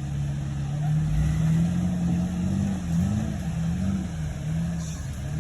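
Jeep Wrangler TJ engine running under throttle while driving off-road; its pitch rises and falls a few times in the middle as the revs change. A brief low thump comes about a second in.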